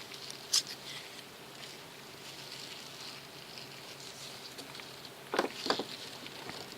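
Small clicks of knife parts and tools being handled while the folding knife is taken apart: one sharp click about half a second in and two more close together near the end, over a faint steady hiss.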